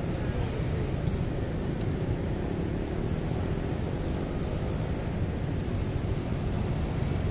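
Motorbike riding through city traffic: steady engine and road noise heard from the moving bike.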